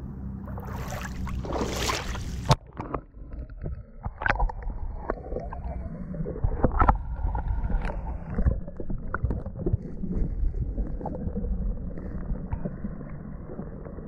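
Open-air water noise at the surface for about two and a half seconds, then the sound turns suddenly muffled as the camera goes under. It continues as low rumbling water noise with scattered clicks and knocks, heard underwater through a waterproof action-camera housing.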